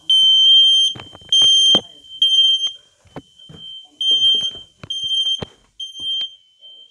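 Smoke alarm sounding during a test: a piercing high-pitched beep repeated about once a second. Some beeps are fainter and slightly lower, and a few knocks come in between.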